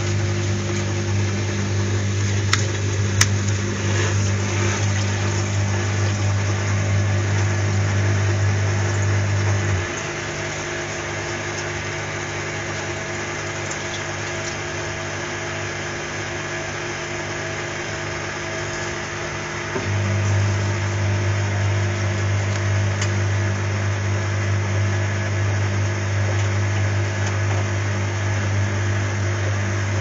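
Front-loading washing machine running its wash cycle: water sloshing in the drum over a low, steady hum. The hum cuts out about ten seconds in and comes back about ten seconds later. Two sharp clicks sound near the start.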